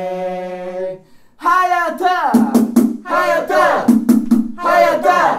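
Football supporters' player chant: the closing held 'are' note of the chant ends about a second in. After a short break come further loud sung calls, punctuated by several sharp beats.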